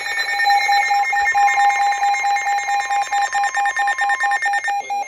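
Weather radio alert alarm beeping rapidly, about five high beeps a second, sounding a severe thunderstorm warning. Under it a dense buzzing broadcast alert signal that cuts off near the end.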